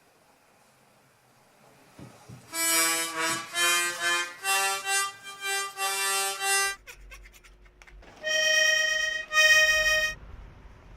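Accordion being played: a quick phrase of separate notes, then two long held notes near the end.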